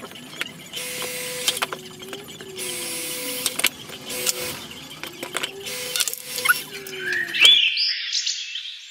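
AL-KO KHS 5200L electric hydraulic log splitter running and splitting seasoned firewood. The motor's hum slides down in pitch and back up as the ram loads and eases, with bursts of hiss and sharp cracks of wood splitting. Near the end it cuts off suddenly, giving way to higher chirping.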